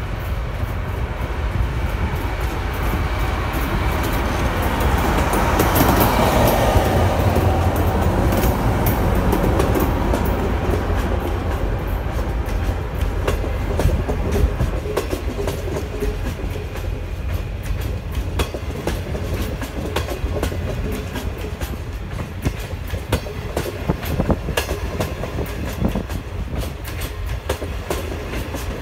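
NDJ3 diesel multiple unit passing close by. Its rumble grows loudest about six seconds in as the lead car goes past, then carries on as a steady run of clickety-clack wheel clicks over the rail joints as the cars roll by.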